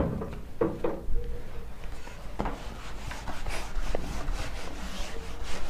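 Handheld whiteboard eraser wiped across a whiteboard in quick, uneven rubbing strokes.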